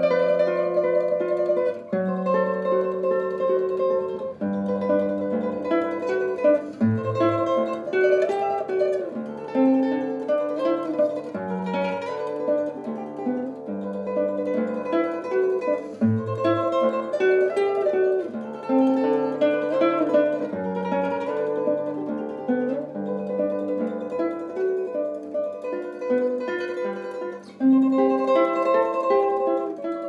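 Solo nylon-string classical guitar playing a slow melody over moving bass notes in fast tremolo, with a brief break near the end before a new phrase.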